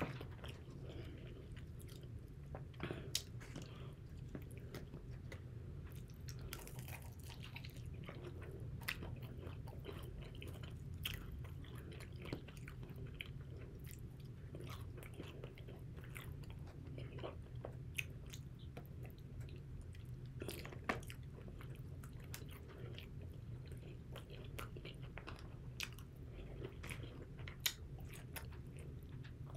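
A person biting and chewing fried chicken wings close to the microphone: scattered faint crunches and wet mouth clicks, over a steady low hum.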